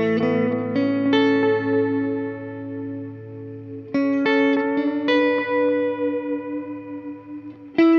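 Electric guitar played through an EarthQuaker Devices Disaster Transport SR modulated delay pedal: short phrases of picked notes and chords that ring out and fade, with a new phrase about four seconds in and another struck near the end.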